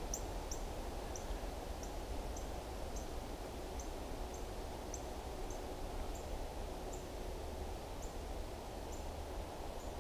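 Outdoor ambience: a steady low rumble of wind on the microphone, with a small bird's short, high chip notes repeating roughly once a second.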